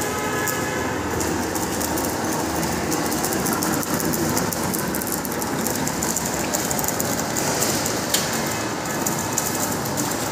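Machinery running steadily, with a constant fine clatter over a running noise.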